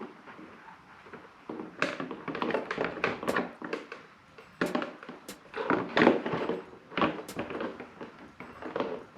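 Irregular clicks, taps and knocks of motorcycle rally-kit parts being handled and fitted by hand, the loudest knock about six seconds in.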